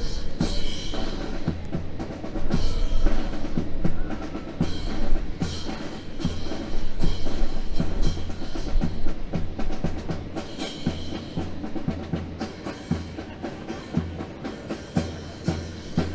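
Fancy rifle drill: drill rifles slapped by hand and struck down in unison, giving a string of sharp cracks and thumps at an uneven, drum-like rhythm over a low hum.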